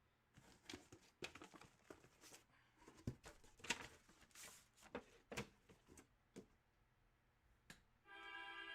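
Faint, irregular rustling and clicking of hands handling items in a small room. Music with sustained string tones comes in near the end.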